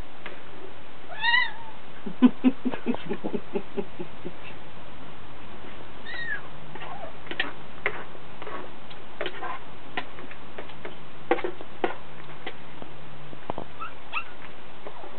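A pet animal making odd, meow-like vocal noises: a rising-and-falling call about a second in and another about six seconds in, a quick run of low pulses just after the first call, and short squeaks and clicks scattered through.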